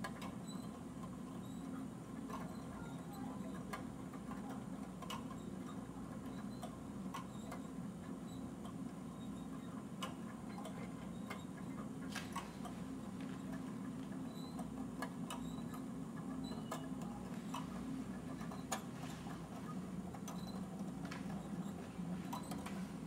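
Kinetico 3-Man Clock Junior kinetic clock running: a steady low motor hum under irregular light clicks and taps from its moving parts, a few of them sharper.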